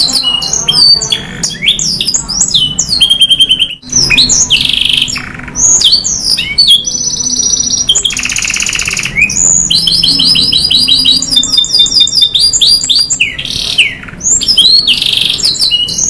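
Domestic canary singing a long, continuous song of fast trills, runs of rapidly repeated notes and clear whistles, with one brief break just before four seconds in.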